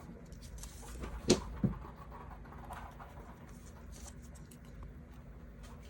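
Faint rustling, scratching and small clicks of sticker sheets being handled and kiss-cut stickers peeled and pressed onto a paper diary page, with two sharp knocks about a second and a half in.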